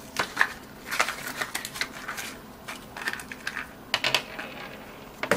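Irregular clicks, crinkles and light clinks as packaged screen door sliders and small bagged metal hardware are handled on a tabletop, busiest about a second in and again near four seconds.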